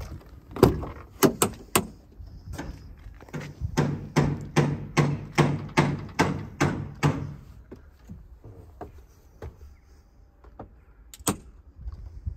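Truck cab door being unlatched and opened, with a few sharp clicks and clunks from the handle and latch. A run of about a dozen regular thuds, about three a second, follows, and there is one more sharp click near the end.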